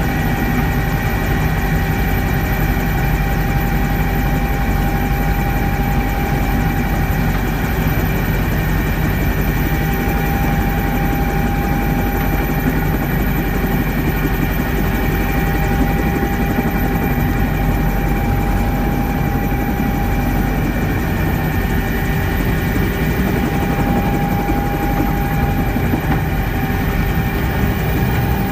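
Cabin noise inside a twin-engine Bell 230 helicopter on its landing approach: steady drone of the rotors and turboshaft engines with a constant high whine, even in loudness throughout.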